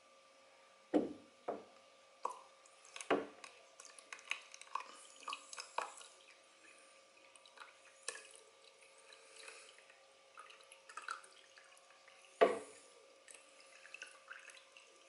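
Water dripping and splashing as a small home aquarium is cleaned. A few louder drops fall into water about a second in, again just after, around three seconds and near the end, with small irregular drips and ticks between them, over a faint steady hum.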